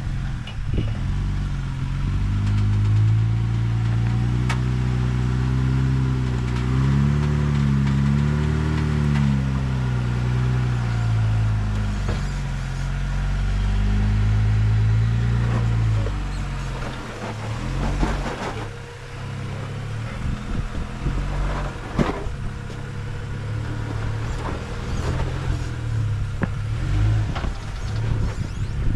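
Jeep Wrangler Rubicon engine working under load on a rock climb, its pitch rising and falling with the throttle for about fifteen seconds. It then drops to a lower, quieter run, broken by sharp knocks, the loudest a little past halfway.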